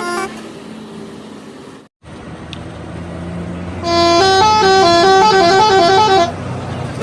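Bus telolet horn, a multi-trumpet musical horn, playing a quick tune of stepping notes for about two and a half seconds over a running bus engine. The end of an earlier tune is heard right at the start, and the sound drops out briefly about two seconds in.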